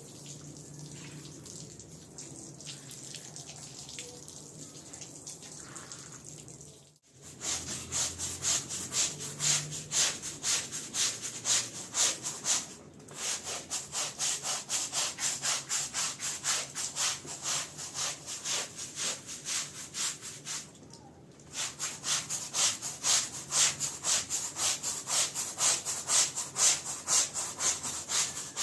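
A stiff brush scrubs a wet rug in quick repeated strokes, about three a second, pausing briefly twice. For the first few seconds there is only a softer, steady hiss.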